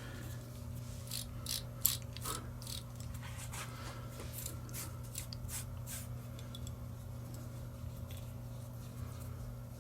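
Metalworking machine running with a steady hum, with a run of sharp mechanical clicks from about one to six seconds in, roughly two a second.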